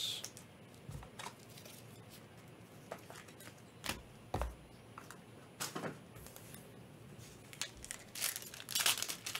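A few scattered light clicks and taps of cards and packs being handled, then, about eight seconds in, a dense run of crinkling and tearing as a foil trading-card pack wrapper is ripped open.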